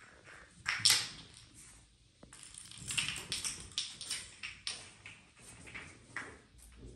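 Kittens scampering and scuffling on a hard tiled floor: a quick, uneven run of scrapes and taps from paws and claws. One loud scuff comes about a second in, then a busier flurry from about three to five seconds in.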